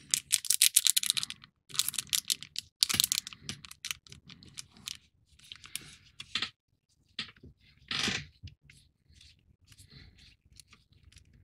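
Small screws and plastic model parts being handled: rapid light clicking and rattling with some rustling, densest in the first second and again around three seconds in, then in shorter, fainter spurts.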